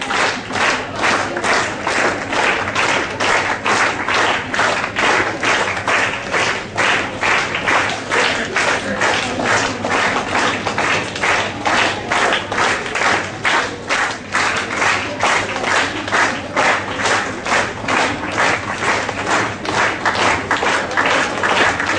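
Audience clapping in unison, a steady beat of about two and a half claps a second.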